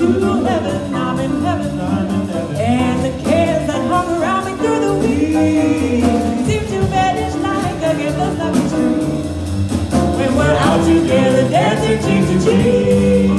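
Two jazz vocalists, a man and a woman, sing together into microphones over a live jazz band of upright bass and drums. Their melodic lines rise and fall continuously, with no lyrics picked out.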